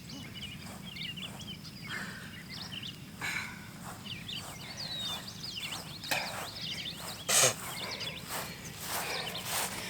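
An exhausted runner breathing hard in repeated heavy gasps after running to his limit on a 20 m shuttle-run (PACER) fitness test. The loudest breath comes about seven seconds in.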